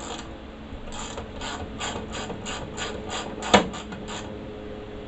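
Hand ratchet wrench clicking in a steady rhythm of about three strokes a second, working a fastener on the window's lift-strut mount, with one sharp metallic click about three and a half seconds in.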